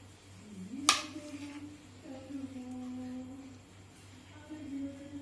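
A woman humming a slow tune in long held notes. About a second in there is one sharp knock as the knife cuts through a peeled dragon fruit onto the plate.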